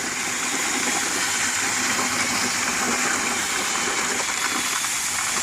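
Water pouring steadily into a bucket of cement mix, a continuous gush.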